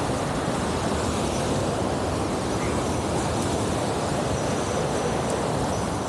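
Steady roar of a rushing mountain stream and waterfall.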